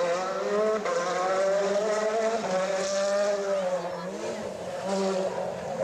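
Rally car engine at full throttle as the car passes. The engine note climbs, drops and climbs again as it changes gear, fades about four seconds in, then rises briefly once more.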